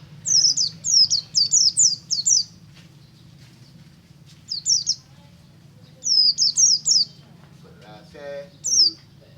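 White-eye (pleci) singing: bursts of rapid, high chirps that each slide down in pitch, strung into runs of several notes, with pauses between the runs. A short, lower call is heard about eight seconds in.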